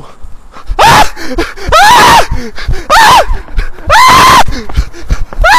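A man screaming while being chased on foot: loud, high-pitched yells that rise and fall, about one a second, starting just under a second in.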